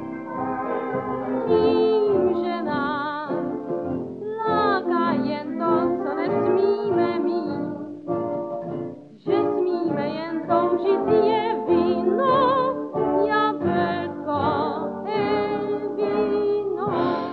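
A 1930s recording of a Czech cabaret song: singing with a strong vibrato over instrumental accompaniment. The music drops briefly about nine seconds in.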